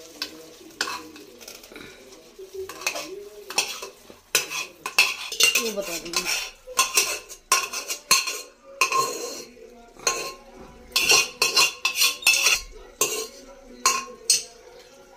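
A metal spoon scraping and knocking against a pressure cooker and a metal kadhai as cooked grated carrot is spooned out of the cooker and stirred in the kadhai. The clinks and scrapes come irregularly and grow busier about four seconds in.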